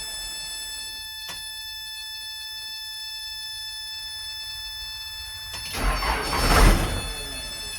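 Case backhoe's warning buzzer sounding as a steady electronic tone, with a click about a second in. Near the end a brief loud burst of engine cranking noise cuts across it, and the buzzer drops out until the burst ends.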